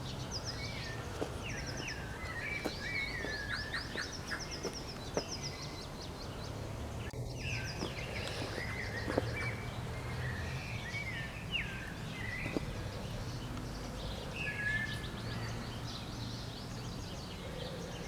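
Several birds chirping and calling in quick sweeping notes over a steady low rumble of outdoor background noise, with a few faint clicks.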